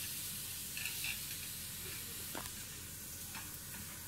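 Steady low hiss of background noise, with a few faint light taps spread through it.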